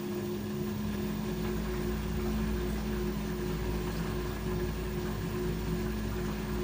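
LG 13 kg front-loading washer-dryer spinning at high speed on a 1400 rpm spin: a steady motor whine at constant pitch over a low drum rumble that comes up about half a second in.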